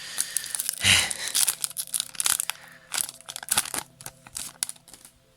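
Foil booster-pack wrapper crinkling and trading cards being handled: a run of sharp rustles and clicks, loudest about a second in.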